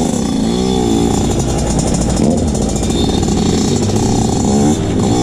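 2020 TM SMR 125 carburetted two-stroke supermoto engine pulling away and revving, its note climbing and dropping back several times as the bike gets under way.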